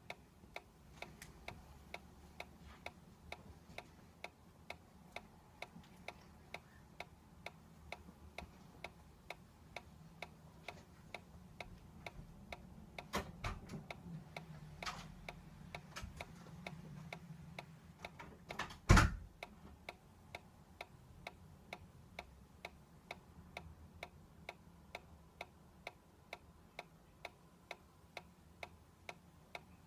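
Solar-powered dancing toy's pulse mechanism ticking steadily, about two ticks a second, as it sways. A single louder knock about 19 seconds in.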